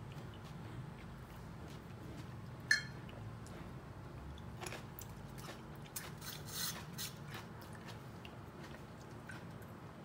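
Bamboo skewers being handled and set into a stainless-steel steamer basket: one sharp metallic clink a little under three seconds in, then scraping and rustling around six to seven seconds, over a faint steady low hum.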